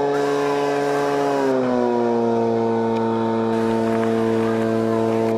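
Engine of the fire-hose water pump running steadily at high revs, then dropping in pitch about one and a half seconds in and holding at a lower steady speed.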